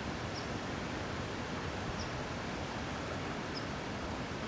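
Steady rushing of flowing river water, with a small bird giving a short high chirp about every second and a half.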